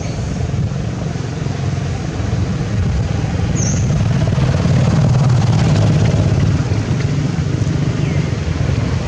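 A low, steady engine rumble that swells a little in the middle, with a brief high chirp about three and a half seconds in.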